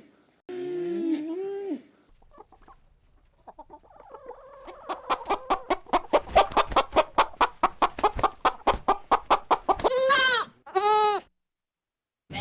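Hen cackling: a rapid run of clucks, about five a second, growing louder, then two drawn-out squawks. It is preceded briefly by the end of another animal's call with sliding pitch.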